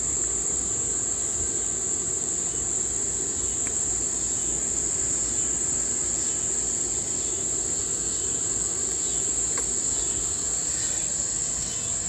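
A steady, high-pitched chorus of insects, such as crickets, over a low, steady rumbling noise.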